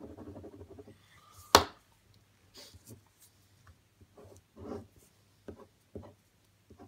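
Schrade tactical survival pen drawing on paper laid on a wooden table: a stretch of continuous scratching at first, then short separate pen strokes. About one and a half seconds in comes a single sharp knock, the loudest sound.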